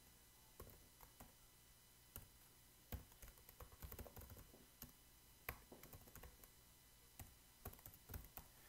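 Faint typing on a computer keyboard: irregular runs of keystroke clicks with short pauses between them.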